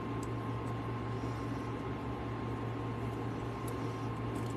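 Steady room noise: a low hum under an even hiss, with a faint steady high tone.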